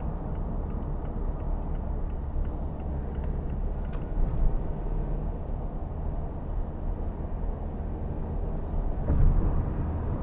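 Cabin noise of a Mazda2 with the 1.5 L SKYACTIV-D four-cylinder turbodiesel under way: a steady low rumble of engine and tyres, with a brief louder bump near the end.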